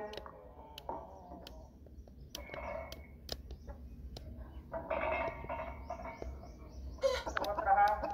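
Game-fowl roosters calling: drawn-out calls about five and seven seconds in, with a few sharp clicks between in the quieter first half.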